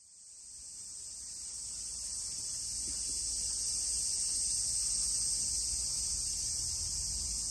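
A dense, steady, high-pitched chorus of summer insects in the trees, fading in at the start.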